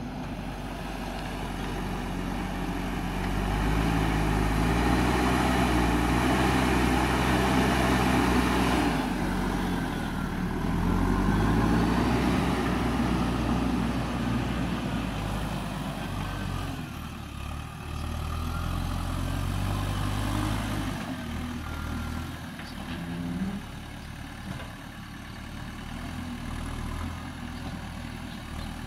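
JCB backhoe loader's diesel engine working under load, revving up and down as the machine carries soil in its front bucket and lifts it to tip into a dump truck. The engine rises in pitch a few seconds in, dips and climbs again, then settles lower and quieter for the last several seconds.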